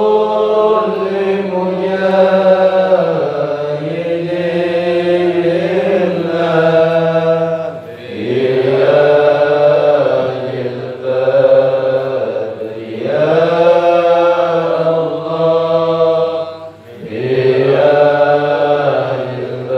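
A group of voices chanting an Islamic devotional chant in unison, in repeated long phrases of about four to five seconds, each swelling and then briefly dipping before the next.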